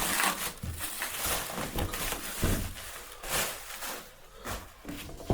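Cardboard box and packaging being handled and opened: irregular rustling and scraping with a few sharper knocks.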